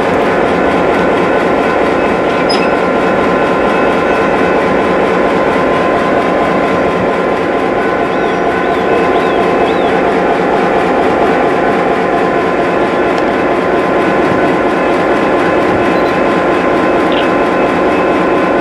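Diesel-electric road-switcher locomotive standing with its engine running, a loud, steady drone with several held tones that does not change.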